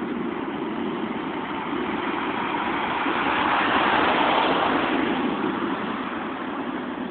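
Steady rushing noise with a road vehicle passing, swelling about halfway through and fading away again.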